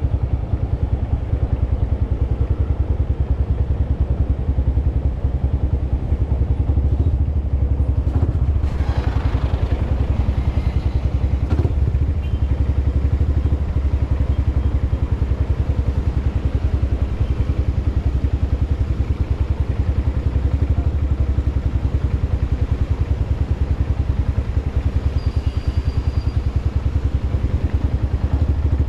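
Motorcycle engine running steadily while riding, with an even, rapid pulse from the engine. A brief rush of noise comes about nine seconds in.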